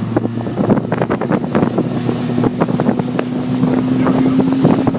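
Motorboat engine running under way and gradually speeding up, with wind buffeting the microphone and many short knocks and slaps throughout.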